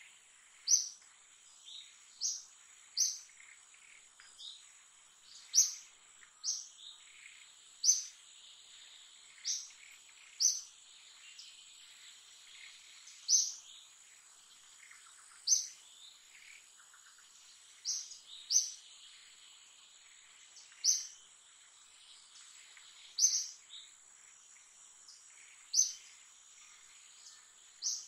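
Forest ambience: a bird gives short, sharp high chirps every second or two, irregularly spaced, over a steady thin high-pitched insect drone.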